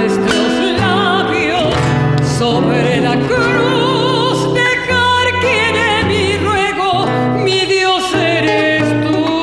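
A woman singing with a wide vibrato, accompanied by an acoustic guitar played with the fingers.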